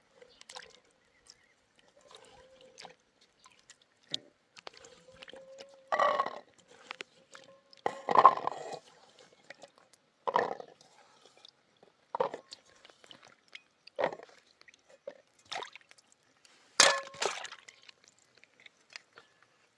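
A series of separate knocks and clinks, roughly one every two seconds, with a faint steady tone underneath in the first half.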